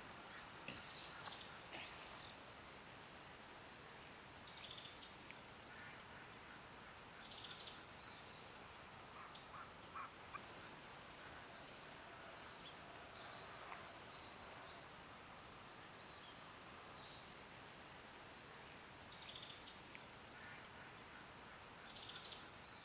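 Grey-spotted flycatcher calling: a faint, steady series of short, thin high notes at an even pace, some louder than others, with a few short buzzy "jii" notes now and then.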